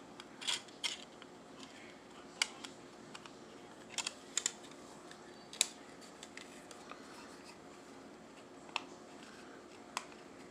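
Scattered short, sharp clicks and snips of small plastic model-kit parts being cut and handled, about ten in all, over a steady low hum.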